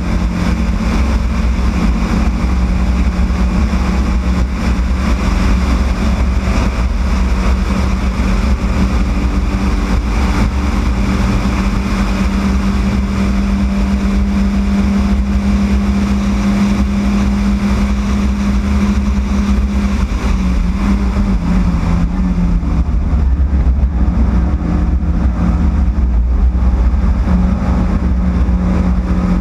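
Yugo race car's four-cylinder engine running hard at steady high revs, a loud constant drone with heavy rumble. Its pitch sags slightly about twenty seconds in and climbs back near the end.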